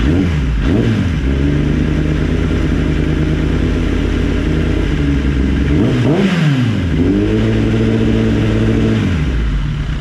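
Kawasaki ZX-10R inline-four sport-bike engine idling and being revved. It gives a quick blip near the start, then a sharp rev about six seconds in, and is held at raised revs for about two seconds before dropping back to idle.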